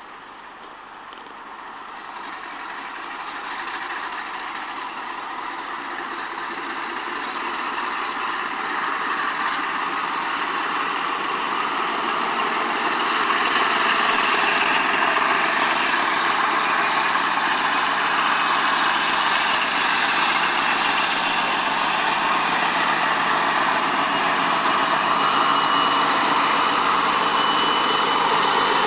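MLW MX627 diesel locomotive's turbocharged Alco 251 V12 engine working hard as it pulls away with a passenger train, throwing dark exhaust smoke. The engine grows steadily louder as it approaches and then stays loud, with a high whine rising slightly near the end.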